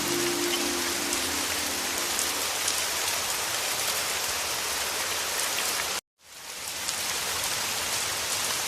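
Heavy rain falling steadily, with scattered individual drop ticks. About six seconds in it cuts out to silence for a moment, then swells back in.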